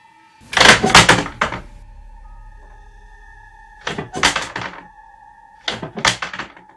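A framed picture banging and rattling against a bedroom wall in three bursts of several quick knocks. The first burst, about half a second in, is the loudest; the others come about four and six seconds in. Under them runs a steady droning music bed.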